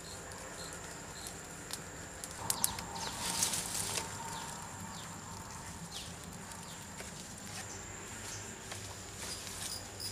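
Dry bamboo leaves and twigs rustling and snapping as a burning torch is pushed into dry brush, with sharp cracks and a loud rustle about two and a half to four seconds in, under a steady high thin whine; light scattered ticks follow.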